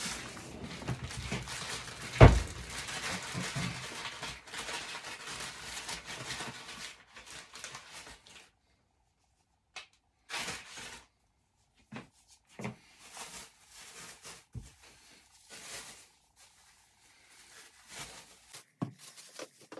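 Rustling and crinkling as the pastry and flour are handled on a kitchen work surface, with one sharp thump about two seconds in. After the first eight seconds or so it turns to scattered short knocks and taps with quiet gaps between.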